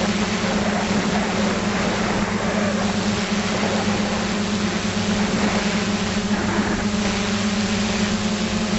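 Electric motors and propellers of an FPV aircraft heard from its onboard camera: a steady hum with a strong low tone and higher tones above it, over a constant rush of prop wash and air.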